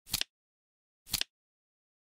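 Flip-clock sound effect: a short, crisp double clack once a second as each seconds card flips over, twice here, with silence between.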